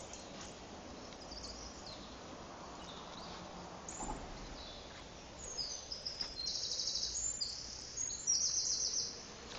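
Songbirds singing in woodland: high chirps and whistled phrases, then two fast, buzzy trills in the second half, the louder one near the end.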